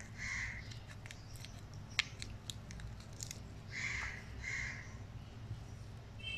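Faint handling sounds of fingers pressing a dry spice mixture into slit okra pods, with scattered small clicks and a sharper one about two seconds in. Three short harsh sounds stand out, one near the start and two close together around the middle.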